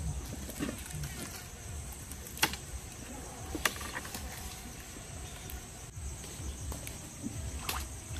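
Grilled fish being handled on bamboo skewers over a wooden board: low handling rumble with two sharp clicks of wood on wood, about a second apart, partway through. A steady high insect drone runs behind.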